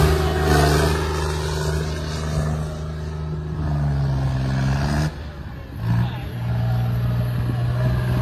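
John Deere tractor's diesel engine revving hard under load while the tractor is spun on loose soil, its pitch rising and falling with the throttle. The engine note drops off sharply about five seconds in, surges briefly, then carries on.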